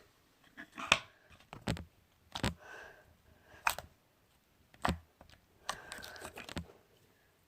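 Slime being squeezed and stretched in the hands, giving off a string of sharp clicks and pops with softer crackling between them.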